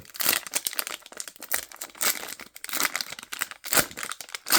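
Plastic-foil wrapper of a Panini Prizm football card pack being torn open and crinkled by hand: a string of irregular crackles, the loudest near the end.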